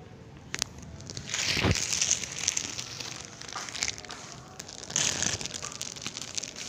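Plastic bag crinkling and rustling as it is handled, in irregular bursts starting about a second in, loudest at first and again near the end, after a single sharp click.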